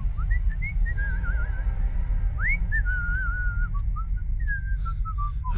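A person whistling a slow, wandering tune with wavering trills and upward swoops, over a steady low rumble.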